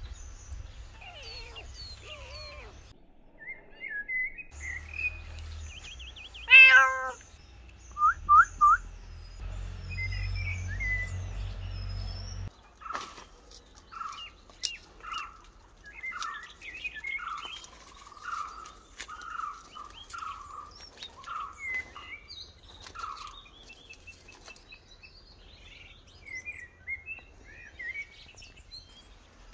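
A cat meowing, the loudest call about six and a half seconds in, with birds chirping and calling throughout.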